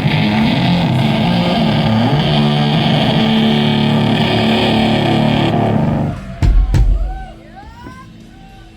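Heavily distorted electric guitar played loud through a stage amp, holding thick, low sustained chords that stop about six seconds in. Two heavy low thumps follow, then faint rising and falling tones.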